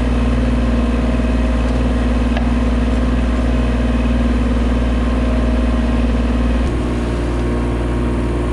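Diesel engines of a Kubota mini excavator and a Bobcat compact machine running steadily while the excavator works its boom. The engine note changes suddenly a little before the end.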